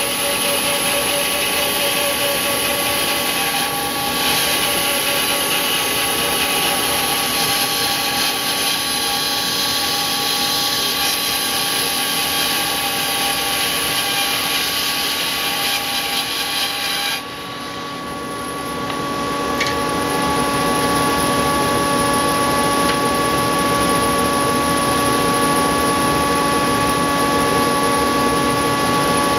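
Hammer N3800 bandsaw resawing 150 mm oak with a 3/4-inch SuperTuff Fastcut blade: a steady, dense cutting hiss over the machine's hum. A little over halfway through, the hiss cuts off suddenly as the blade comes out of the wood, and the saw runs on with its steady hum.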